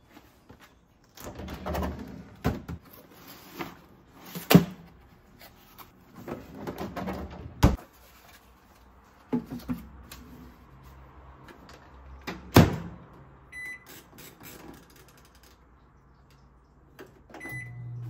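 Kitchen handling sounds: a freezer drawer and a microwave oven door opening and shutting with sharp clacks, the loudest about four and twelve seconds in. Then two short beeps from the microwave's buttons, and near the end the microwave starts with a low steady hum.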